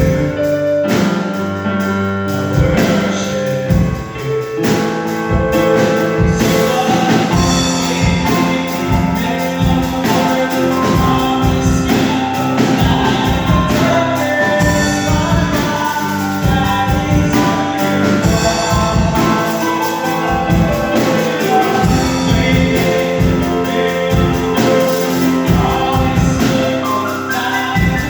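Gospel music: voices singing over a band with a steady drum beat.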